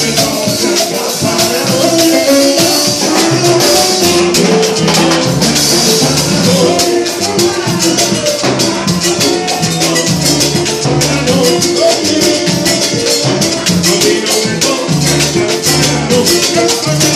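Live Cuban salsa band playing an instrumental passage, with a shekere (beaded gourd shaker) keeping a quick, even rhythm over a moving bass line.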